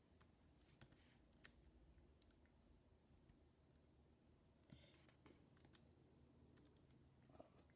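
Faint, scattered key clicks from a white MacBook's built-in keyboard as a word is typed, a few isolated taps over near silence.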